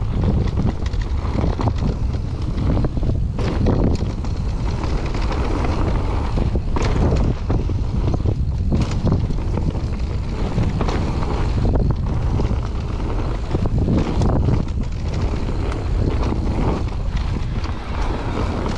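Wind buffeting the camera microphone as a mountain bike descends a dirt trail, with a steady rumble of tyres on dirt and frequent knocks and rattles from the bike over bumps.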